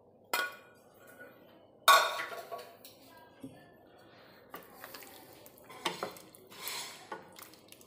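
Metal pot knocking against the rim of a cooking pan as mashed dal is tipped and scraped into the sambar, the loudest clank about two seconds in ringing briefly. Then a wooden spoon stirring and scraping through the thick sambar in the pan, with a few light knocks.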